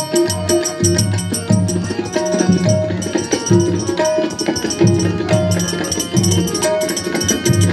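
Tabla being played in a fast, dense rhythm, sharp treble-drum strokes mixed with booming bass strokes from the bayan, over a repeating melodic line of short notes.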